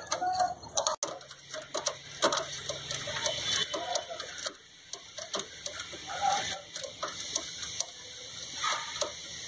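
Small clicks and knocks of hands pushing a cover into place over a jeep's wiper linkage. Short calls are heard a few times in the background.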